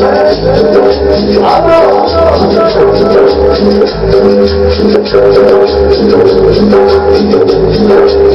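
Tropical dance music played loud through a sonidero sound system: a shaker rattles over a steady bass beat and sustained melody.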